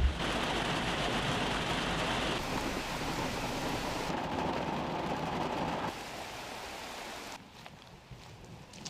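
Heavy rain from a thunderstorm, a steady hiss that drops in steps and is much quieter over the last second and a half.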